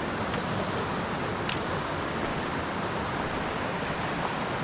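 Small mountain stream running steadily over a rocky riffle, a constant rush of water.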